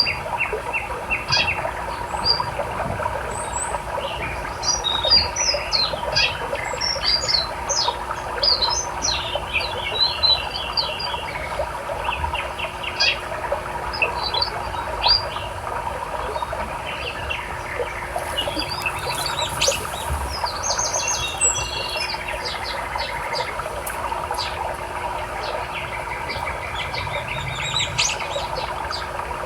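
Many small birds chirping and trilling over the steady rush of a flowing river.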